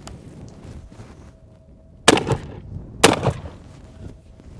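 Handling noise from a double-barrel shotgun's action: two sharp metal clacks about a second apart, each followed by a brief rattle.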